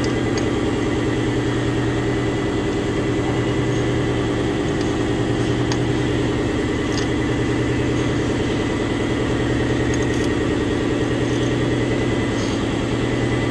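An engine idling steadily, with a few faint light clicks over it.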